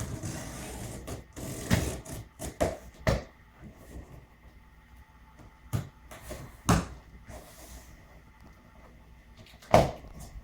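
A cardboard shipping box being handled and worked open by hand: scattered sharp crackles and knocks, about six in all, with the loudest near the end.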